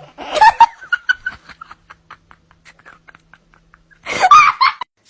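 A person laughing: a loud burst, then a run of short quick giggles, and another loud burst of laughter about four seconds in, cut off suddenly.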